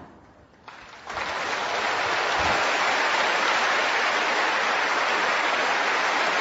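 Audience applauding, starting about a second in and quickly building to a steady level.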